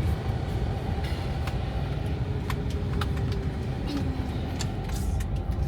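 Car driving along, a steady low engine and road rumble with a few light clicks and rattles.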